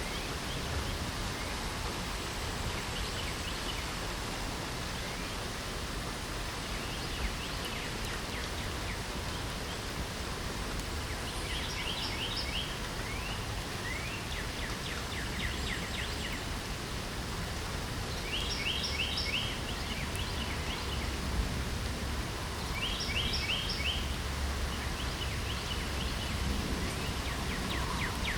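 Steady hiss of light rain, with songbirds singing short, rapid trilled phrases of quick repeated notes every few seconds from about eleven seconds in.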